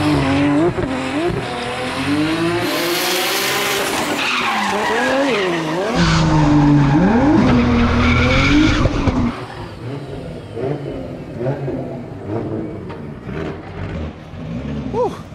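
Nissan S14 drift car's RB25 NEO engine revving hard, its pitch climbing and dropping again and again, with tyres squealing as the car drifts. It is loudest a little after the middle, then drops away and sounds farther off.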